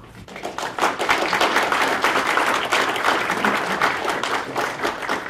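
Audience applauding, many hands clapping; it builds up over the first second and then carries on steadily.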